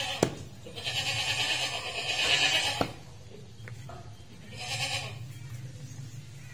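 A goat bleating, one long call of about two seconds and then a short one, with two sharp knocks of a cleaver chopping meat on a wooden block.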